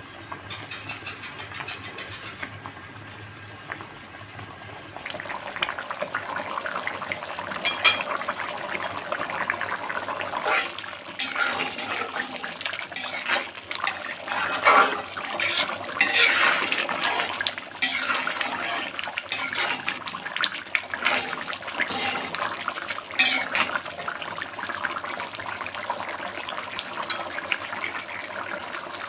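Watery beef-skin curry boiling in an aluminium pot, bubbling and spluttering, louder from about five seconds in. A metal ladle now and then stirs and knocks against the pot.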